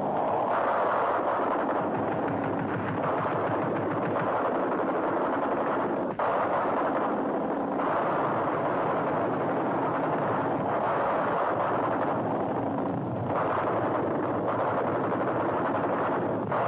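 Continuous, dense rattle of machine-gun fire on an old film sound-effects track, at a steady level, its texture shifting every few seconds.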